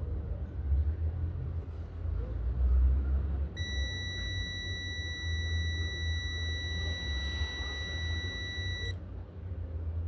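Multimeter continuity buzzer giving one steady high beep, about five seconds long, starting a few seconds in, while its probes rest on the terminals of a washing machine heating element. The beep signals continuity through the element, which reads about 27 ohms. A low steady rumble runs underneath.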